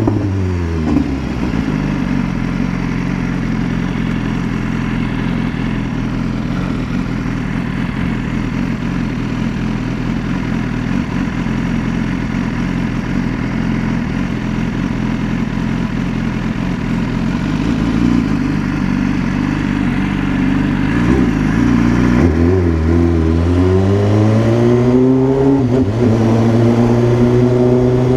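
BMW S1000RR's inline-four engine under way. The engine note falls as the bike slows at the start and holds steady for a long stretch. Near the end it dips suddenly, then climbs again under throttle and holds a higher note.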